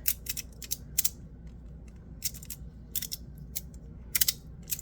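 PdEdc magnetic fidget slider being worked by hand, its metal halves clicking sharply as the magnets snap them together, in quick irregular clusters of clicks.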